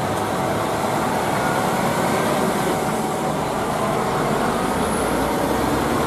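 Cement mixer truck's diesel engine running as the truck drives past on a street, with steady road noise.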